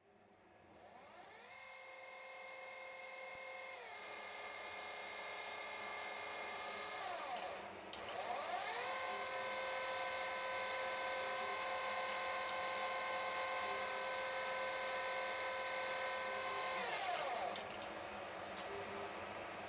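CNC lathe spindle whining as it spins up: a steady whine that steps down in pitch, winds down with a click about eight seconds in, then spins back up and holds before winding down again near the end.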